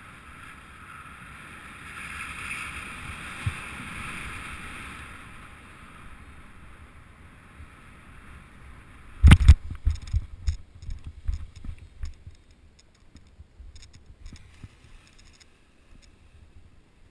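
Airflow rushing past the microphone during a paraglider's final glide. About nine seconds in comes a loud thud as the pilot touches down, followed by a quick run of thumps and knocks from feet and gear on the grass, which then fade into scattered light clicks.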